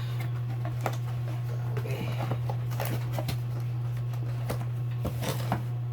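Scattered light clicks and rustles of motorcycle light parts and their plastic packaging being handled, over a steady low hum.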